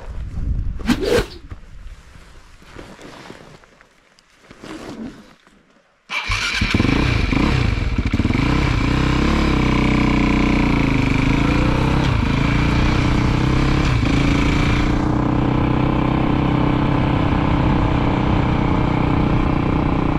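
Motorcycle engine cuts in abruptly about six seconds in and runs steadily while riding, its pitch dipping and rising briefly before settling.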